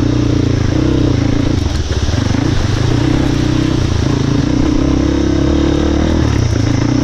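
Crossfire 250 dirt bike engine running at a fairly steady throttle while the bike is ridden along a rough, broken mountain track, heard up close from the rider's position.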